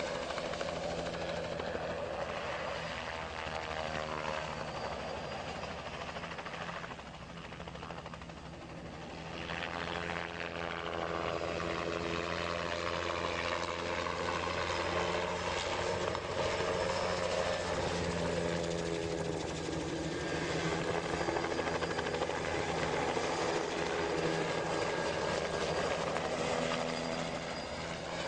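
Light helicopter flying low overhead, its rotor and engine noise sliding up and down in pitch as it passes back and forth. The sound fades briefly about a quarter of the way through and then comes back stronger.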